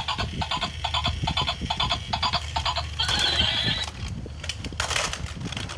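Recorded horse sound from a toy: a quick clip-clop of galloping hooves, about four beats a second, then a short whinny about three seconds in.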